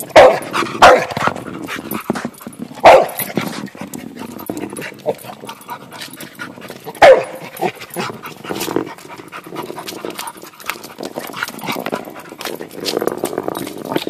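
Pit bull–boxer mix dog barking sharply, about four times in the first seven seconds, at a 12-pound shot put it is pawing. Between the barks come scuffs and light knocks of the heavy ball being pushed over asphalt.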